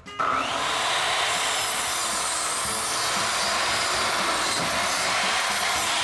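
Electric miter saw running and cutting through wood. It starts abruptly just after the beginning and holds a steady, even cut throughout.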